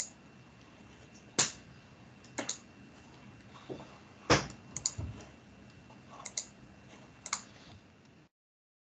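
Scattered clicks of a computer mouse and keyboard, about seven in all and some in quick pairs, over faint room hiss. Near the end the sound cuts out to dead silence.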